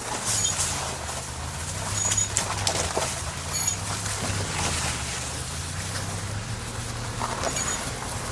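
Third-generation Honda CR-V's steering squeaking and creaking in short, irregular squeaks as the wheel is turned to the left, over the low steady hum of the idling engine.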